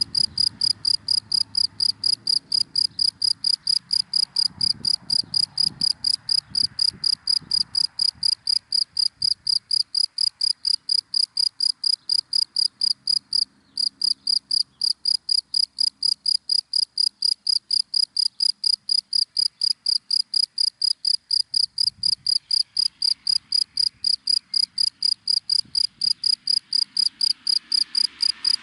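A cricket chirping steadily in dry grass, a fast even pulse of about four to five chirps a second, with one brief break about halfway through.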